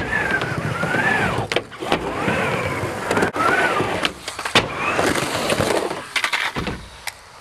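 Skateboard riding a mini ramp: wheels rolling with a steady rumble, a wavering scrape as the trucks grind the coping, and several sharp clacks of the board striking the ramp.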